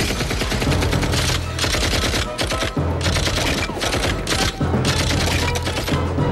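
Rapid automatic gunfire in several long bursts with short breaks between them. A low music score drones underneath.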